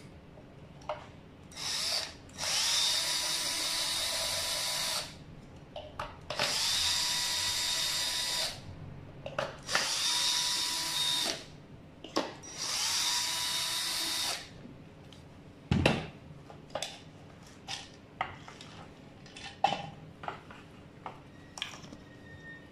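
Cordless drill-driver whirring in four bursts of a few seconds each on the screws of an electric scooter's front housing, the motor whining at a steady pitch. After the bursts come a sharp knock and scattered clicks as the parts are handled.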